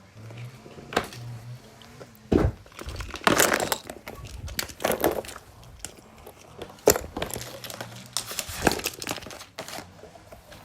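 Irregular handling noises: crinkling and rustling, with scattered sharp clicks and knocks, as small toys are handled.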